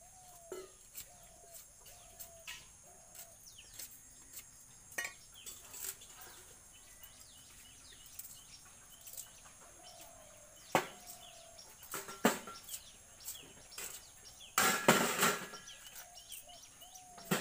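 Fresh coconut husk being chopped with a hand blade and torn off in fibrous strips: scattered sharp chops and cracks, two hard strikes near the middle, and a louder tearing rasp lasting about a second near the end. Small birds chirp faintly throughout.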